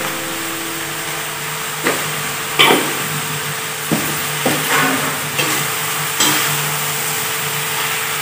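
Sliced sarputiya gourd frying in a kadhai with a steady sizzle, while a metal spatula stirs it, scraping and knocking against the pan several times. The loudest knock comes about two and a half seconds in.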